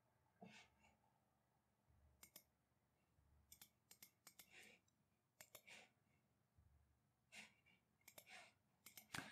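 Faint computer mouse clicks, scattered and irregular, several in quick pairs, over near silence.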